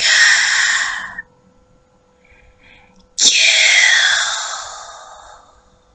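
Loud, breathy, hissing whispering: one whisper trails off about a second in, and another starts abruptly about three seconds in and fades out slowly. A faint steady hum runs underneath.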